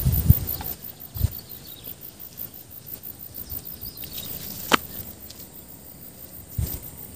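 Faint outdoor background with a few soft knocks and one sharp click about halfway through, handling noise as the camera is moved about on the riverbank.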